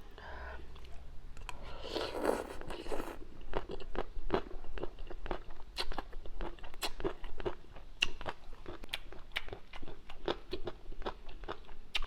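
Mouth close to the microphone chewing crunchy papaya salad: a quick, uneven run of sharp crunches, a few each second, after a short noisy rush about two seconds in.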